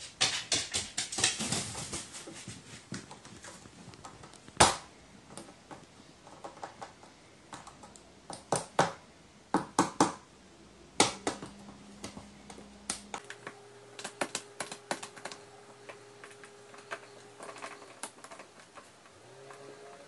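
A pet crow's beak and claws tapping and clicking irregularly on a branch perch and a wooden floor, with one loud knock about four and a half seconds in.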